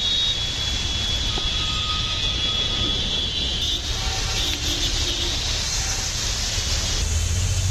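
Road traffic driving through a flooded street in heavy rain: a steady rush of rain and water splashing under the wheels over a low rumble of bus, car and motorbike engines, with a thin high whine during the first half.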